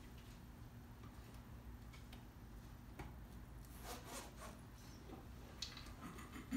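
Faint handling sounds of a book being closed and set down on a lectern: a soft knock, some rustling of paper and cloth, and a few small clicks, over a steady low room hum.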